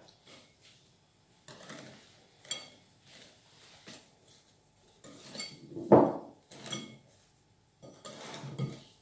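Wire balloon whisk working through a thick cream mixture in a bowl, folding in whipped egg whites: intermittent soft scrapes and clinks of the whisk against the bowl, with a sharper knock about six seconds in.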